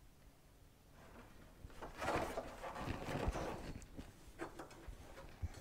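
A 1968 Ford Torino's plastic centre console and chrome shifter plate being handled: the console is turned over and the plate set into it with rubbing and scraping, then a few light clicks near the end as the plate with its new spring clips is pressed into place.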